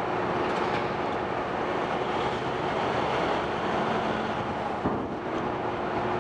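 Engine running with a steady drone and a constant low hum, with a single knock about five seconds in.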